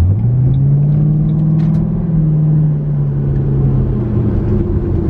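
2007 Mustang GT's 4.6-litre V8 under throttle, heard from inside the cabin. The revs climb sharply right at the start, hold for about two seconds, then slowly ease off.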